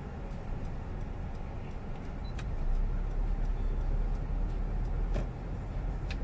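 A car's engine and road noise heard inside the cabin, a steady low rumble that grows louder for a couple of seconds in the middle as the car pulls through a turn. A few faint clicks come through.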